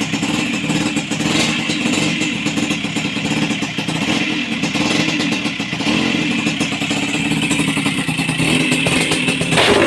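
Vespa PX two-stroke single-cylinder engine running under way on a test ride, with a rapid firing pulse. Just before the end it turns suddenly louder into a dense rattling.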